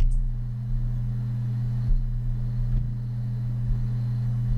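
A steady low hum of a few fixed tones, with a few faint ticks about two and three seconds in.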